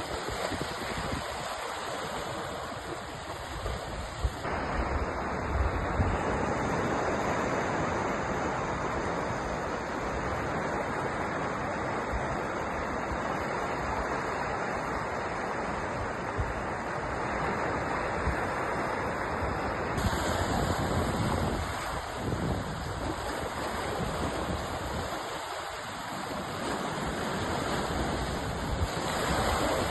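Sea surf washing in a continuous rush of water noise, swelling and easing slowly. The tone changes abruptly twice, a few seconds in and about two-thirds through, like spliced recordings.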